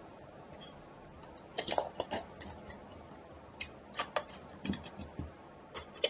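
Light, scattered clicks and ticks of a small screwdriver and screw against a Mac Mini's metal chassis as a screw is fitted into the drive bay, the loudest about two seconds in.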